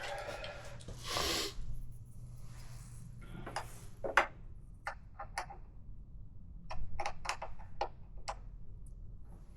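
Light clicks and taps of hand-tool work on motorcycle windshield parts, with a short rushing scrape about a second in and the sharpest click a little past four seconds, over a steady low hum.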